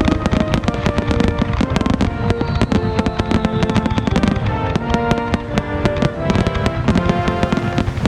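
Aerial fireworks going off in a rapid, dense string of bangs and crackles, several a second, over music with sustained notes.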